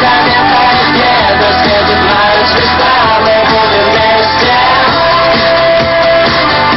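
Loud rock song playing, with guitar and a singing voice over a steady band mix.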